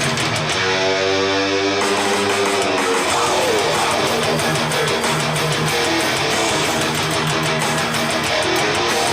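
Rock music with strummed electric guitar, played back through S90E loudspeakers fitted with Alphard midrange and tweeter drivers. A chord is held from about half a second in, its treble cut off until nearly two seconds in.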